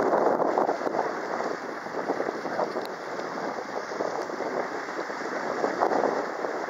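A small sightseeing boat underway: a steady rushing noise of the boat moving through the water, with wind buffeting the microphone.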